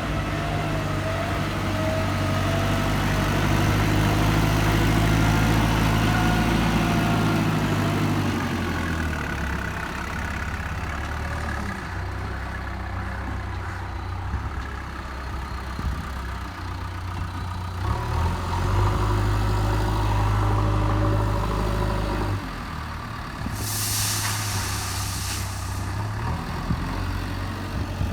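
JCB 3DX backhoe loader's diesel engine working under varying load, loud for the first several seconds and easing off around nine seconds in, then pulling harder again from about eighteen to twenty-two seconds. A short hiss comes about twenty-three seconds in.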